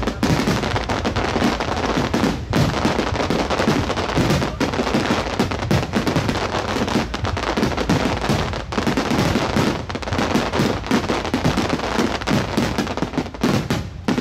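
Aerial firework shells bursting in a dense barrage: overlapping booms and crackling with only brief gaps.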